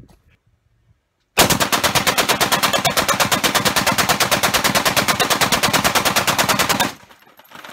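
Belt-fed Browning M1919A4 machine gun firing one long burst of about five and a half seconds, starting about a second and a half in, at a fast even rate of roughly nine shots a second, then stopping abruptly.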